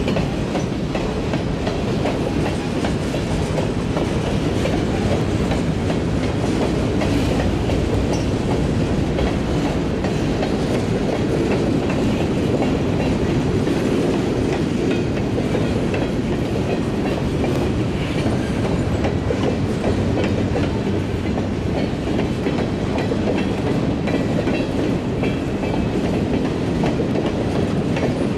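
Freight train boxcars rolling past at close range, a steady rumble with the clatter of wheels over the rails.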